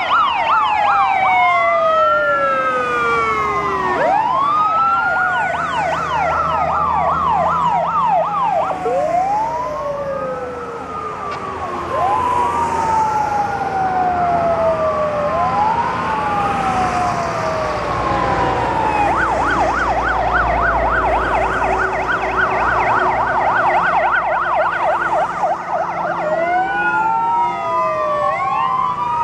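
Several fire engine sirens sounding at once as a column of fire trucks drives past. Long rising and falling wails overlap, with a fast yelping siren at the start and again from about two-thirds through, over the low hum of the trucks' engines.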